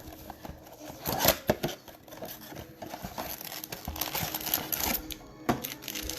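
Plastic trading-card packaging crinkling and tearing in irregular bursts as a blaster box and its packs are opened, with a sharp click near the end.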